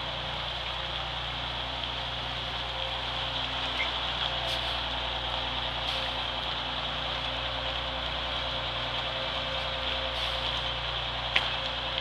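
Transit bus engine running steadily while the bus manoeuvres slowly, with a sharp click near the end.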